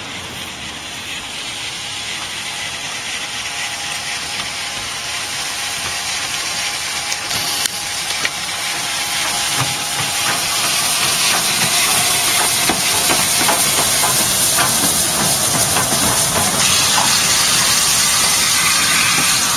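Steam locomotive 30777 Sir Lamiel, a Southern Railway N15 King Arthur class 4-6-0, passing close by with a hiss of steam. The hiss grows steadily louder as the engine comes near, with a few scattered knocks in the middle.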